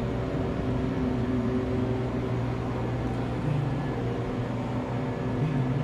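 Steady low electrical hum, a buzzing tone with overtones that holds level throughout.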